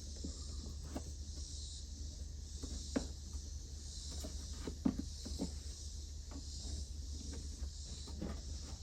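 Faint scattered clicks and light knocks of hands and a tool working at plastic car interior trim, trying to pry it loose, over a steady high hiss.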